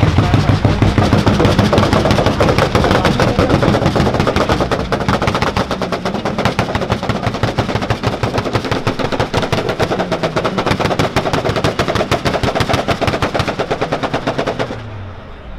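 Car engine held at high revs, its exhaust crackling in a fast, even string of loud pops, like machine-gun fire, that drops away just before the end.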